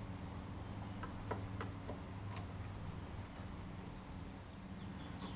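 A handful of light clicks and ticks from a small hand tool working at the tailgate's plastic trim clips, in the first half, over a steady low background hum.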